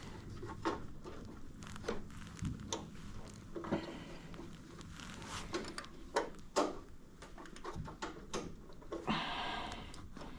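Scattered light clicks and taps of hands and tools working the small metal linkages on a lawn tractor's carburetor, with a brief hiss near the end.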